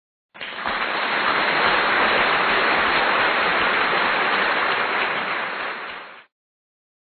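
Crowd applause, most likely a sound effect: many hands clapping in a steady dense patter. It comes in quickly just after the start and stops abruptly about a second before the end.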